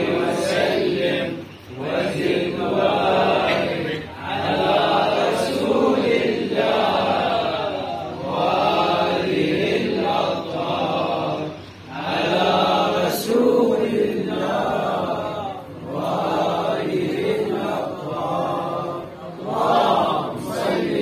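Men's voices chanting together in phrases a few seconds long, with short breaks between them.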